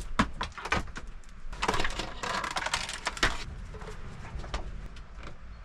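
Items being cleared off a countertop by hand: scattered knocks and clicks, with a longer rustling scrape from about one and a half to three and a half seconds in as a large desk mat is pulled off.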